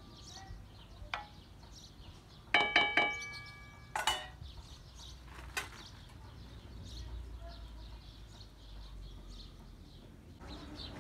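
Metal cookware clinking as a spoon knocks against a metal pot and bowl: a quick run of ringing clanks about two and a half seconds in, another clank at about four seconds, and lighter taps before and after. Faint bird chirps in the background.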